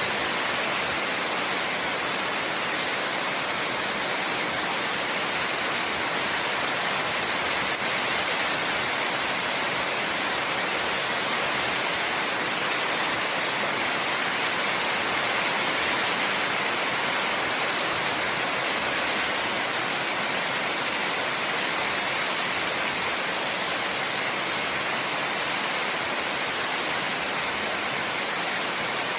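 Steady heavy rain falling, an even unbroken hiss of water with no single drops standing out.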